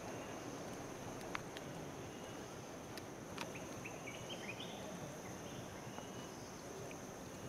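Outdoor ambience: a steady high-pitched insect drone over a low rushing background, with a few short chirps near the middle and a few scattered clicks.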